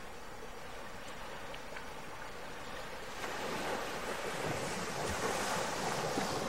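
A steady rushing noise, which grows louder and brighter about three seconds in.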